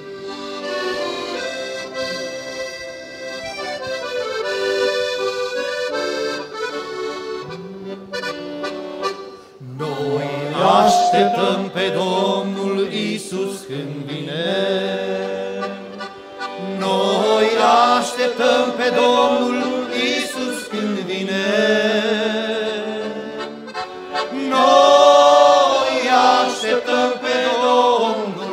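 Two piano accordions playing an instrumental introduction. About ten seconds in, several male voices join, singing a Romanian Christian hymn to the accordion accompaniment.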